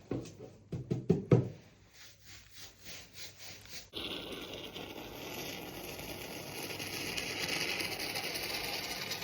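A few knocks and rattles of handled tools, the loudest about a second in. Then, about four seconds in, a steady rush of running water starts abruptly.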